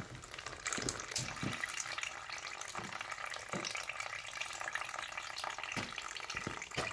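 Old water-contaminated engine oil pouring in a thin steady stream from the drain-plug hole of a Chevy 454 big-block's oil pan, splashing into a drain pan below with scattered drips.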